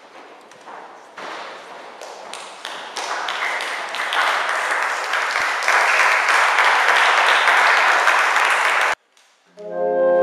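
Audience applause, building from scattered claps to a dense, even clapping, cuts off suddenly about nine seconds in. A saxophone quartet, soprano down to baritone saxophone, then starts playing held chords near the end.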